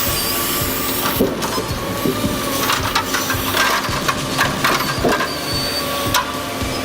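Heavy machinery running with a steady hum, overlaid by a string of sharp cracks and knocks, most of them in the middle of the stretch.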